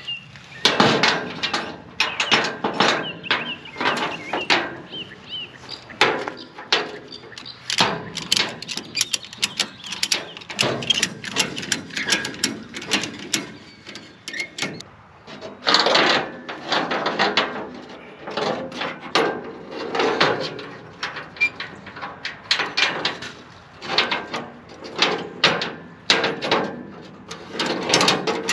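Ratchet tie-down straps being hooked to a steel diamond-plate car trailer and cranked tight: a continuous run of metal clanks, knocks and ratchet clicks.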